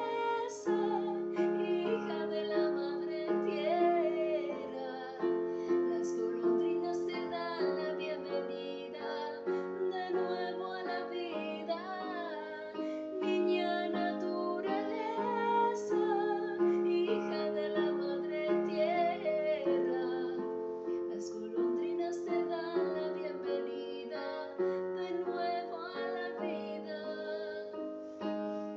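A song: a woman singing a slow melody over a sustained instrumental accompaniment.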